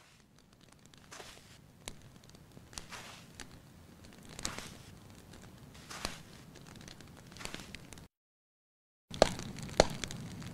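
Slow footsteps crunching through dry grass and brush, about one every second and a half, with scattered small crackles. The sound cuts out for about a second, then two sharp, loud snaps come half a second apart over continued crackling.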